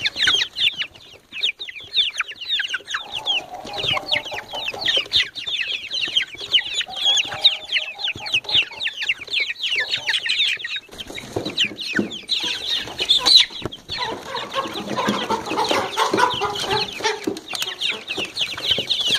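Four-week-old Light Sussex chicks peeping nonstop, a dense chorus of short falling peeps, with lower, throatier calls now and then, the longest stretch about three-quarters of the way through.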